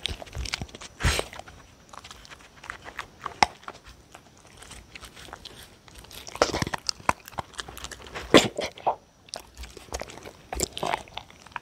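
Two dogs eating from a plastic bowl right under the microphone: irregular crunching and chewing, with clicks of teeth and muzzles against the bowl.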